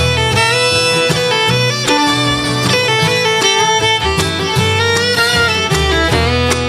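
Live bluegrass band instrumental break, with the fiddle leading in long held and sliding notes over strummed acoustic guitars and a plucked upright bass line.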